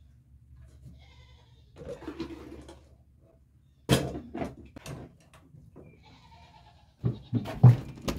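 Goats bleating several times, with a few sharp knocks about four seconds in.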